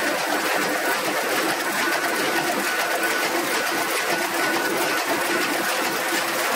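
Old sheet-fed printing press running, its automatic sheet feeder picking sheets off the stack, with a steady, fast mechanical clatter.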